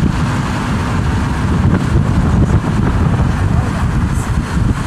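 Strong wind buffeting the microphone, a loud, uneven low rumble with a hiss of gusting air above it.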